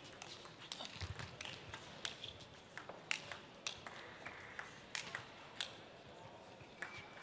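A table tennis ball striking rackets and bouncing on the table: a string of sharp clicks at irregular spacing, over a low hall murmur.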